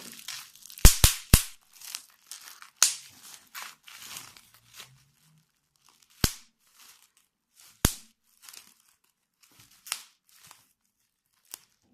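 Plastic bubble wrap squeezed by hand: sharp pops, three in quick succession about a second in, then single pops spread apart, among the crinkling of the plastic sheet.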